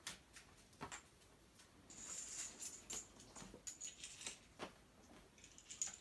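Playing cards being handled and laid down on the game boards: faint scattered flicks and light taps, with a short rustling flurry about two seconds in.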